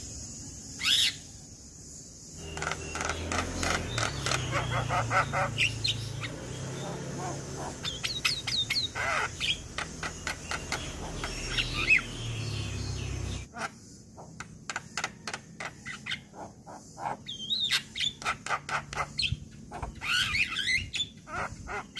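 Male Javan myna (jalak kebo) singing: rapid runs of short harsh chattering notes broken by a few whistled glides. A low steady hum sits under the first half and cuts off abruptly just past the middle.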